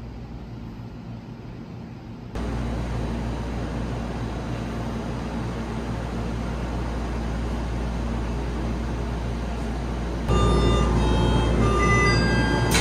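Steady hum of a people-mover train and its platform. About ten seconds in, a run of short electronic beeps at several pitches starts: the Skytrain's door-closing warning chime. A sharp click comes near the end.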